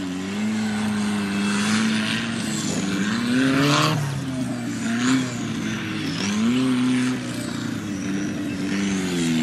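Off-road racing buggy engine revving hard, its pitch rising and falling again and again as the throttle is worked through the dirt.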